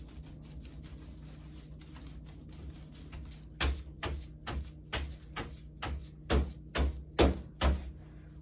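Hands working wet concrete from a plastic cup into a small mold. About three and a half seconds in, a run of light knocks or taps starts, roughly two a second.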